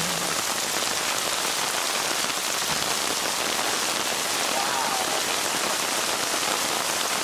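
Steady patter of rain falling on surfaces, an even hiss, with a faint wavering tone about two-thirds of the way through.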